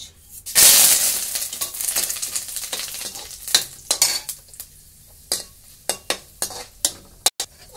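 Tempering spices (curry leaves, fenugreek seeds, asafoetida and whole dried red chillies) hit hot oil in a kadhai with a sudden loud sizzle about half a second in. The sizzle fades over the next few seconds while a metal ladle stirs and clinks against the pan.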